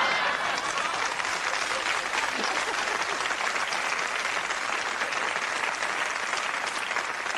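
Studio audience applauding steadily, a long round that is loudest at the start and eases a little.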